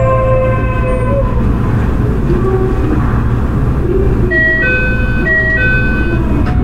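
Toei 6300 series subway car with Hitachi GTO-VVVF inverter: the inverter's tones, falling slightly in pitch as the train slows, cut out about a second in, over a steady low running rumble. Near the end a two-tone chime sounds twice.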